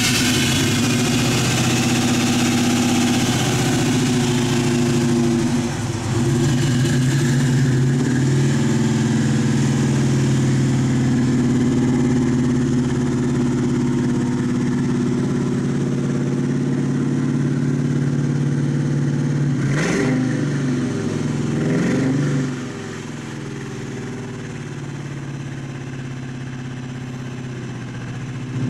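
A 1964 Buick Skylark's LS2 V8 crate engine idling steadily, with two quick throttle blips about two seconds apart late on.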